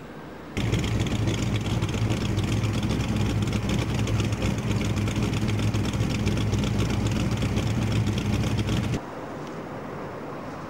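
Steady mechanical running noise with a low hum and a hiss. It starts suddenly about half a second in and cuts off abruptly about nine seconds in.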